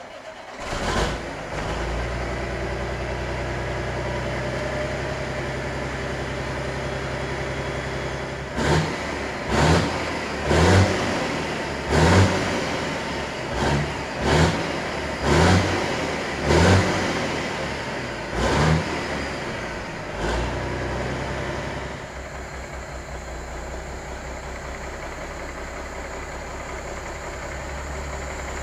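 A semi truck's diesel engine, the Marmon 57P's, starts and runs at a fast idle. Then it is revved in about ten short blips, a second or so apart, before settling to a lower idle.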